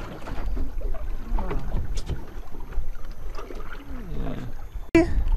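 Faint, muffled voices over a steady low rumble, with one sharp click about two seconds in and a brief dropout just before the end.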